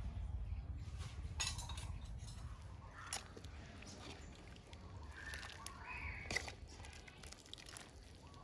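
A metal ladle clinks a few times against the steel soup pot and a ceramic bowl as soup is ladled out, over a low steady rumble.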